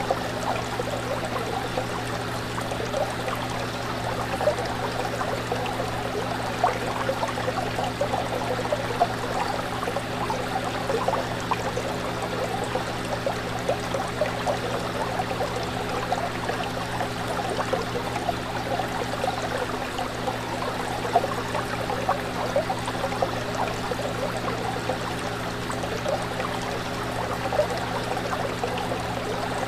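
Fish tank water bubbling and trickling steadily with small gurgles, over a constant low motor hum from the tank's equipment.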